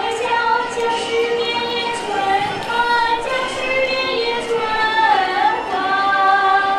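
A young girl singing solo into a handheld microphone, holding long notes, with a waver in pitch about five seconds in.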